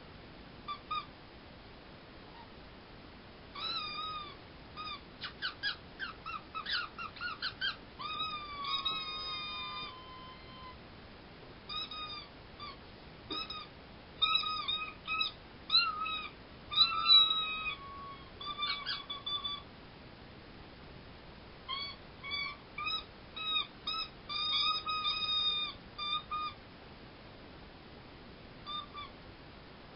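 Squeaker toys squeezed in quick runs of high, gliding squeaks, one run after another with short pauses, like two parties taking turns in a squeaky conversation.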